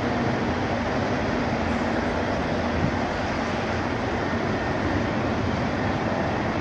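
Airbus A380's four Rolls-Royce Trent 900 turbofan engines running at taxi power as the airliner taxis, a steady jet rumble and hiss.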